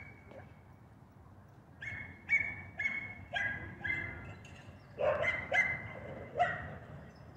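A dog barking repeatedly, about nine short, high barks in two runs, starting about two seconds in.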